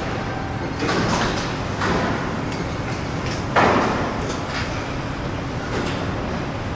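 Metal factory ambience: a steady low machinery rumble with metal clanks and scraping bangs on top, about four of them, the loudest about three and a half seconds in and ringing on briefly.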